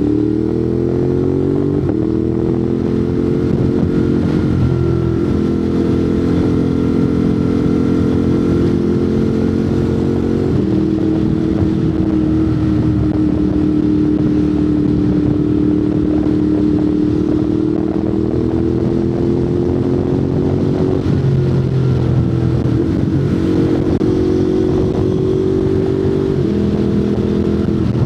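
Ducati Monster 821's L-twin engine through a Termignoni exhaust, riding under way. The engine note holds or glides slowly, with sudden steps in pitch at gear changes about half a dozen times, made with the quick shifter.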